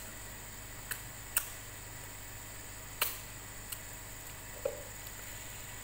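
Four short, sharp clicks, the loudest about a second and a half in, and a brief low blip near the end, over a steady background hiss.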